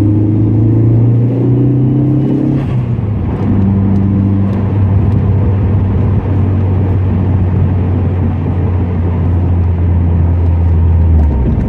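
Car engine accelerating onto a freeway, heard from inside the cabin: its pitch climbs for the first couple of seconds, drops at a gear change, then settles into a steady drone with road noise.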